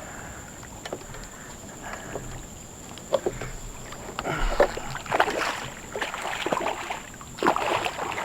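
Water splashing and sloshing beside a small skiff as a hooked redfish thrashes near the surface during the fight, in several irregular bursts starting about three seconds in. A faint steady high tone runs underneath.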